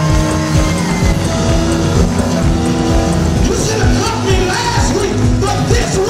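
Music with a steady beat and held pitched notes, rock-styled.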